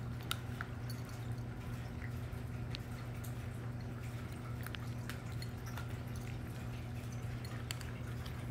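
Bengal cats crunching dry kibble from ceramic bowls: scattered small, sharp clicks and crunches at irregular moments, over a steady low hum.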